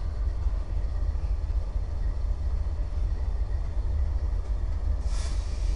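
Diesel freight locomotives passing close by, a steady deep engine rumble with the noise of the train on the rails. A brief hiss rises about five seconds in.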